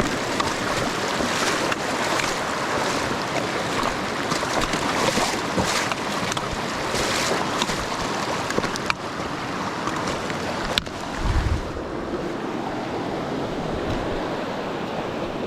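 Steady rush of a mountain river flowing over rocks, with a few faint clicks.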